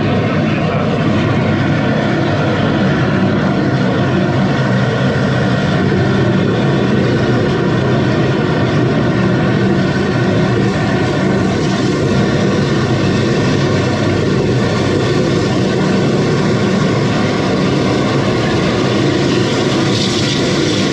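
Petrol engine of a high-pressure drain jetter running steadily under load while water is jetted down the drain to clear a paper blockage.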